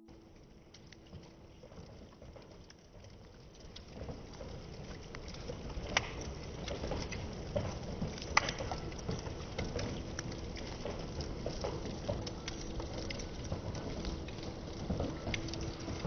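Irregular pattering of wet snowfall and drips landing on surfaces, thickening after a few seconds, with two sharper, louder drips about six and eight seconds in.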